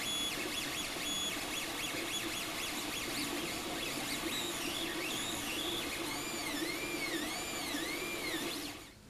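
3D printer running a print: the stepper motors whine in shifting pitches, with a steady hum underneath. Later the whine rises and falls in a run of repeated arcs, about one and a half a second, and the whole sound cuts off just before the end.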